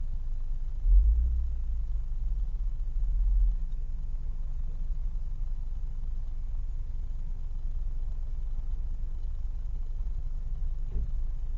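Low, steady idling engine rumble of a stationary vehicle, with a louder swell about a second in and another around three seconds in.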